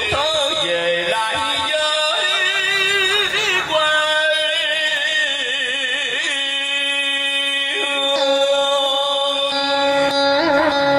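Background music: a melody of long held notes with vibrato over a steady accompaniment.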